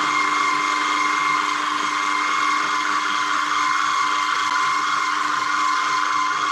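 Electric food processor motor running steadily at full speed with an even whine, blending a pesto of spinach, artichokes, basil and parmesan.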